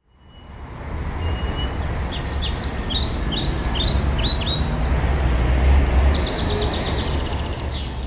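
Wind buffeting the microphone with a low rumble, over a flock of birds calling: a run of short downward chirps from about two seconds in, then a fast rattling chatter later on. The sound fades in at the start.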